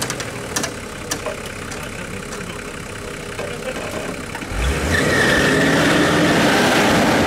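Off-road 4x4's engine labouring as the vehicle climbs a steep dirt bank, with a few sharp clicks in the first second. About four and a half seconds in, the engine is revved hard and stays loud, with a steady high whine over it.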